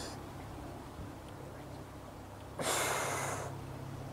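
A person's heavy breath during a strenuous prone back exercise: one noisy huff just under a second long, about two and a half seconds in.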